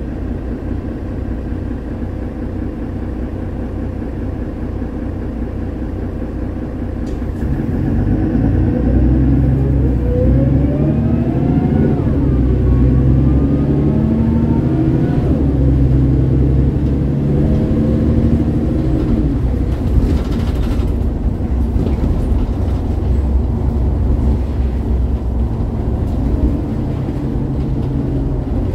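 Mercedes-Benz Citaro G articulated bus's OM906hLA six-cylinder diesel, heard inside the passenger cabin: idling steadily, then about seven seconds in it pulls away. Its pitch rises and drops back at each upshift of the ZF Ecomat automatic, two or three times, before it settles into steady running.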